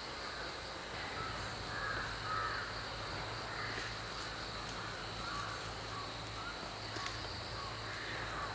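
Crows cawing over and over, short harsh calls in quick succession, with a steady high-pitched drone and a low hum underneath.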